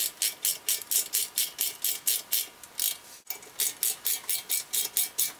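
Hand ratchet clicking in quick, even strokes, about four to five a second, as a 7 mm Allen bit on it runs in a brake caliper guide pin. There is a brief break about three seconds in.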